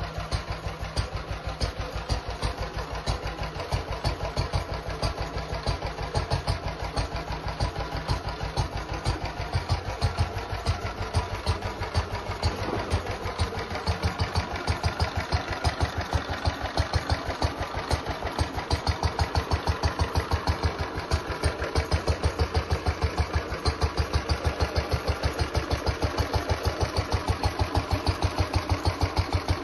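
Restored Lister Type D single-cylinder petrol stationary engine running on its first fire-up in decades, firing in a steady, even beat that grows stronger about halfway through. It is a little bit noisy, which the owner thinks is the tappets.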